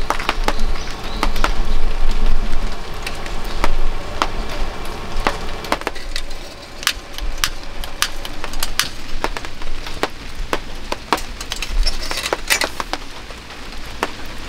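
Rain falling, a steady patter that thins after about six seconds, with many sharp, irregular taps and clinks throughout.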